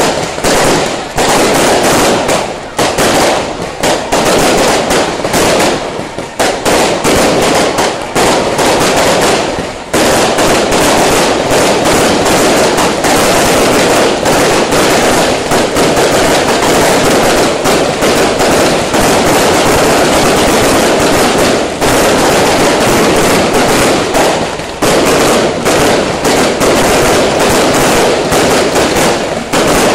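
Strings of firecrackers going off in a loud, rapid, dense crackle, with a few short breaks in the first ten seconds and again a little past the middle, otherwise almost unbroken.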